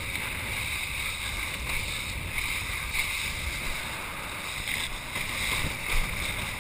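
Wind rushing over a chest-mounted GoPro's microphone while a kiteboard skims across choppy sea, with a steady hiss of water, a rumble and one brief louder bump near the end.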